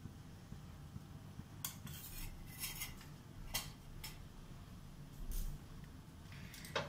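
A steel spoon clinking and scraping lightly against a non-stick kadai with oil in it: a few separate light clinks, most of them in the middle and one near the end.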